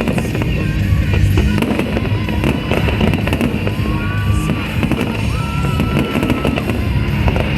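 Fireworks bursting and crackling in rapid, overlapping bangs, over loud music.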